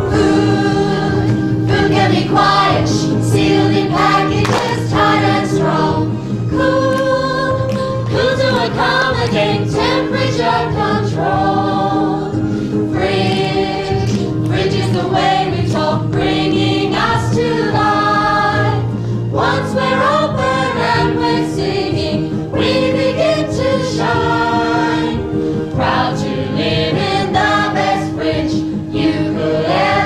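A chorus singing a stage song with instrumental accompaniment.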